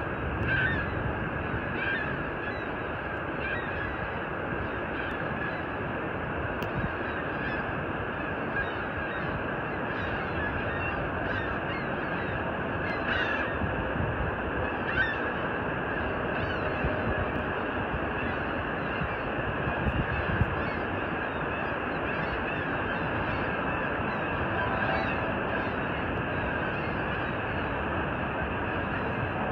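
Steady roar of Niagara Falls, water pouring over the falls and churning in the gorge below, with short bird calls breaking in every few seconds.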